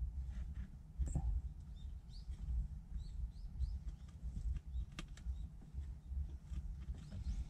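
A few sharp clicks and light rattles from hands working at a Daihatsu Hijet's accelerator pedal and throttle wire, over a low rumble. Several short bird chirps sound in the middle.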